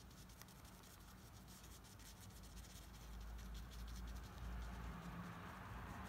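Watercolour brush bristles dabbing and scratching on textured paper: a quick run of light, scratchy taps while tree foliage is stippled in, over a low steady hum.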